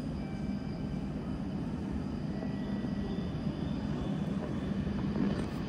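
Low rumble of an approaching E5 series Shinkansen train, still some way off, slowly growing louder.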